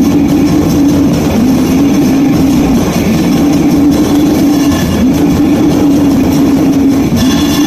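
Raw, lo-fi goregrind: a heavily distorted guitar riff and drums in a dense wall of noise, loud throughout, with the riff's low pitched note dipping and returning about every second and a half.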